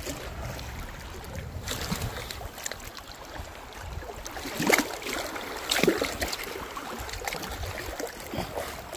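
Shallow lake water sloshing and splashing as a dog wades and paddles through it, with two louder splashes around five and six seconds in.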